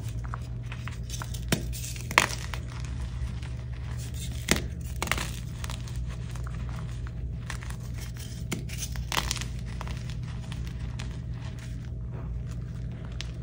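Hands crushing and crumbling soft dyed gym chalk blocks and loose chalk powder: a continuous gritty crunch broken by irregular sharp cracks as pieces snap, the loudest about two seconds in and again at four and a half seconds.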